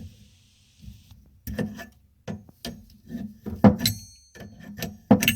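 Hammer striking a screwdriver to break loose a rusted faucet mounting nut: a run of about ten sharp, irregular metal knocks, some ringing briefly, starting about a second and a half in.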